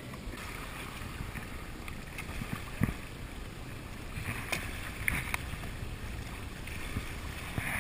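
Small lake waves lapping and splashing around shoreline rocks, with a low rumble underneath and a few sharper splashes about three and five seconds in.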